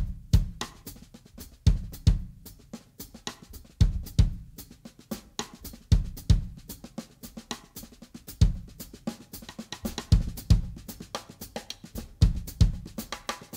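Drum kit played with sticks: a driving groove with paired bass-drum kicks about every two seconds and busy snare, hi-hat and cymbal strokes between them.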